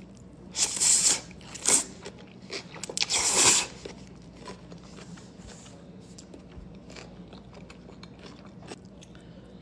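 Close-miked eating: loud crunchy bites into fresh cucumber, about a second in, again near two seconds and around three seconds, then quiet chewing with small wet clicks.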